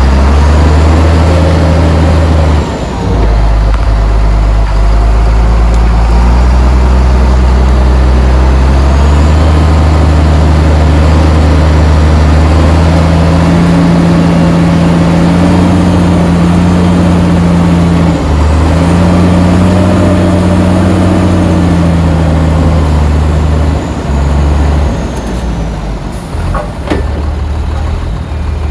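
Heavy diesel engines of earthmoving machinery running under load, the engine pitch rising and falling as the machines work. A few sharp knocks come near the end.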